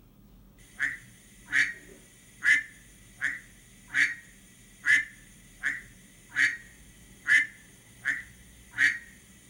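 Recorded mallard duck quacks played back by an Arduino sound module from a WAV file on an SD card: a steady series of about eleven short quacks, a little under a second apart, starting about a second in.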